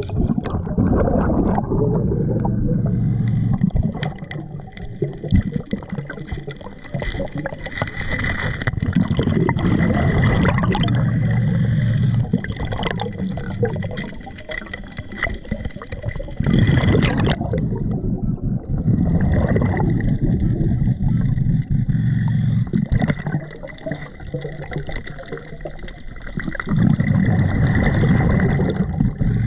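A diver breathing through a regulator underwater: three long, loud bubbling exhalations, one at the start, one about 17 seconds in and one near the end. Between them come quieter clicks and scrapes of gravel being fanned and dug, over a faint steady high tone.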